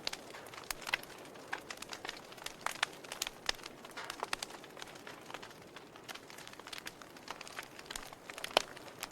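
Wood fire burning in a fireplace, crackling with irregular sharp pops over a soft steady hiss; one louder pop near the end.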